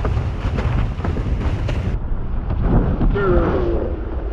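Wind buffeting the microphone of a boom-mounted camera on a planing windsurf board, mixed with water spray crackling against it. The sound turns duller about halfway through, and a brief wavering tone comes in about three seconds in.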